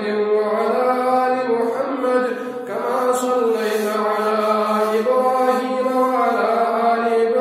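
A man reciting the Quran in Arabic in a melodic chanting style, holding long drawn-out notes that rise and fall. He makes a brief pause for breath about two and a half seconds in.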